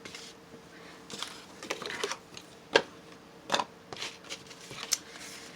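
Irregular light taps and rustles, about seven in all, of an ink pad being dabbed along paper edges. The loudest tap falls near the middle.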